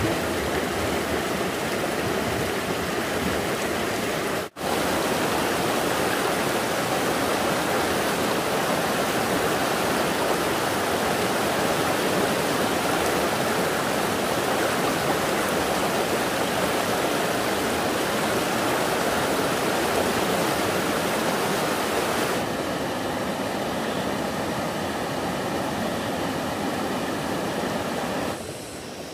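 Stream water rushing steadily and loudly. It cuts out for an instant about four and a half seconds in, and grows a little softer near the end.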